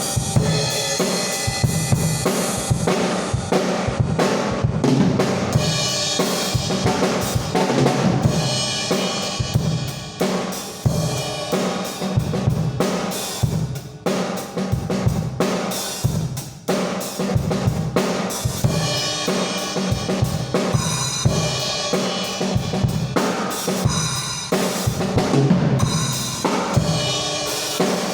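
Drum kit played as a continuous groove, with kick and snare strokes under steady cymbal and hi-hat wash from Armada Trojan B8 bronze cymbals.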